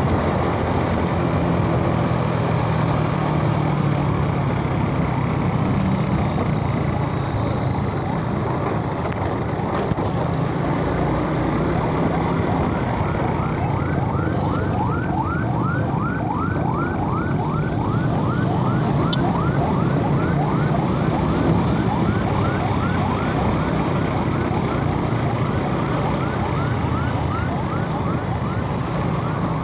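Suzuki Smash motorbike's single-cylinder engine running with wind and road noise while riding. About halfway in, a siren starts up in quick, repeated rising sweeps, two to three a second.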